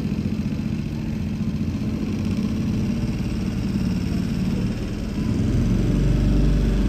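Small tour boat's engine running steadily at low speed, with a deeper and louder rumble from about five and a half seconds in.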